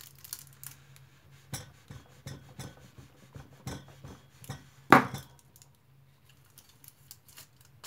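Kitchen knife pressing and working down through a bar of hazelnut milk chocolate on foil over a plastic cutting board: a string of small clicks and crackles, then one loud sharp snap about five seconds in as the blade breaks through.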